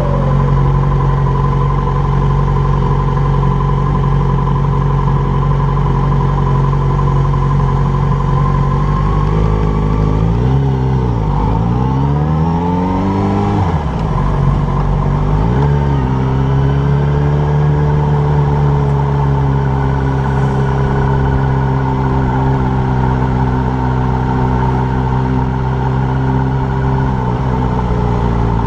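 Yamaha motorcycle engine running at low town speed. Its note falls and climbs again twice in the middle as the throttle is eased off and reopened, then holds steady.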